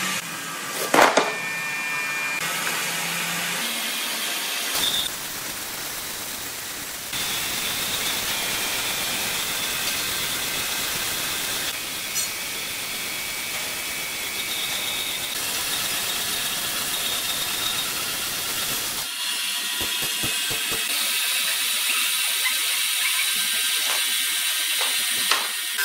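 Large horizontal band sawmill running through a big log: a steady, hissing mechanical saw noise whose tone changes abruptly a few times.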